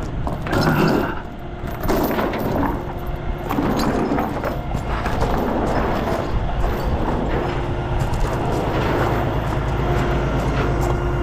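Peterbilt 579 semi tractor's diesel engine idling steadily, with chains rattling and clanking in the first few seconds.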